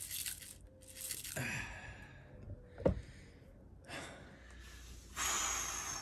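A single sharp knock about three seconds in as the Shark mini cordless handheld vacuum is put down on the mat, then a long breathy sigh near the end.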